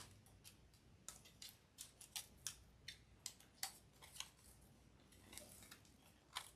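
Plastic cable tie being worked through a stick-on cable tie mount and pulled snug around a grapevine branch: faint, irregular ratcheting clicks, about two or three a second.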